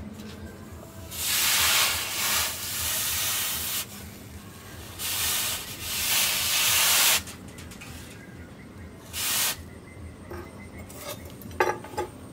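Hot steel knife blade quenched in a trough of water, hissing and sizzling in three bursts: two long ones of a couple of seconds each and a short one later, as the blade is dipped, lifted and dipped again to harden it. A few light clicks near the end.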